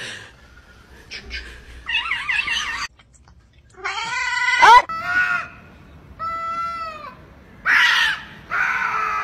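Cats meowing and yowling: a run of separate drawn-out cries, several wavering or bending in pitch. The last two, near the end, are louder, harsher yowls from two cats squaring off to fight.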